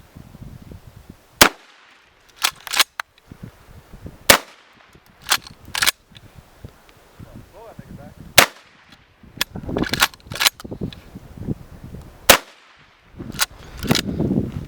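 Four shotgun blasts, roughly every three to four seconds, each followed about a second later by a pair of quieter sharp clacks as the action is worked to chamber the next shell.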